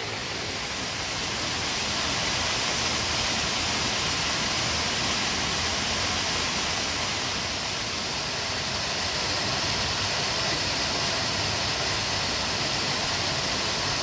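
Waterfall on a mountain river: a steady rushing of falling water, getting a little louder about two seconds in.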